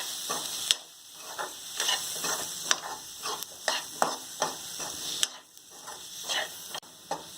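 Onion-tomato masala with ground spices frying in a little oil, sizzling softly while a utensil stirs and scrapes it around the pan with frequent irregular scrapes and taps.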